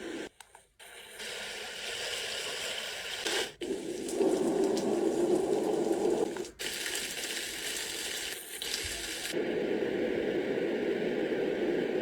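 Portable baby white noise machine playing its soothing noise tracks, some water-like, switching to a different sound about every three seconds with brief drop-outs between them.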